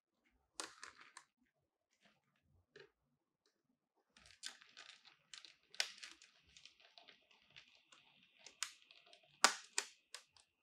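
Scissors cutting through a rigid clear plastic blister pack: a series of sharp snips over the crackle and crinkle of the flexing plastic. There is a short burst about half a second in and a denser run from about four seconds on, with the loudest snip near the end.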